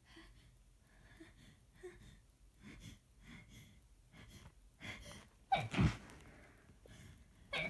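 A person's muffled, rapid sneezing fit: a run of short stifled sneezes and catches of breath, with the loudest sneeze about five and a half seconds in and another near the end.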